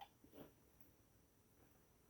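Near silence, with a faint click at the start and a brief soft sound about half a second in.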